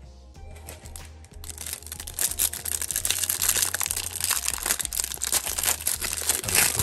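Clear plastic wrapper crinkling and tearing as it is peeled off a stack of trading cards, getting louder about two seconds in. Background music with a low bass line plays throughout.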